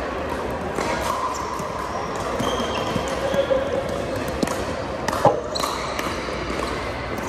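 Sharp pops of pickleball paddles and balls striking and bouncing on a hardwood floor, echoing in a large gym over a background murmur of voices. The loudest pop comes about five seconds in.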